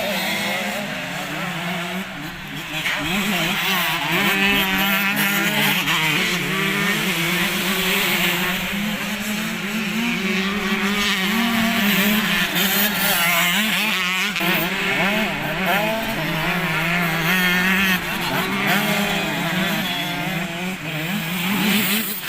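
Several motocross bikes running on a dirt track, their engines revving up and down over one another.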